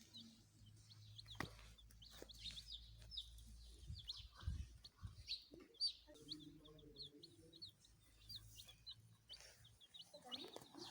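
A group of baby chicks peeping continuously: many short, high chirps, several a second, overlapping one another.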